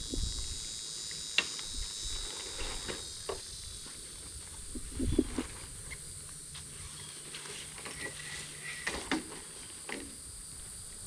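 Canopy leg poles and fabric being handled, giving scattered light clicks and knocks over a steady high outdoor hiss.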